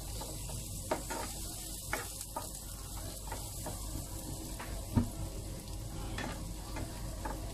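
Chopped onion and garlic sizzling in oil in a frying pan, stirred with a wooden spoon that knocks and scrapes against the pan a few times, the loudest knock about five seconds in.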